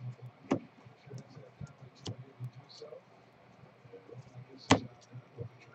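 Baseball trading cards handled by hand: cards sliding and rustling as a stack is flipped through, with a few sharp clicks as cards snap or tap together, the loudest near the end.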